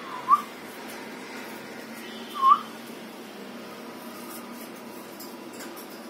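Alexandrine parakeet giving short whistled notes: two quick ones at the start and a third about two and a half seconds in.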